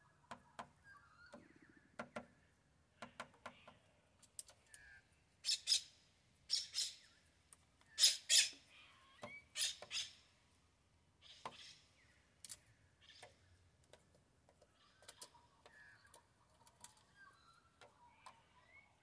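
A young Australian magpie pecks at maggots in a plastic wheelie bin: a string of sharp beak taps, the loudest coming in quick pairs around the middle, with a few short, soft chirping calls from the bird in between.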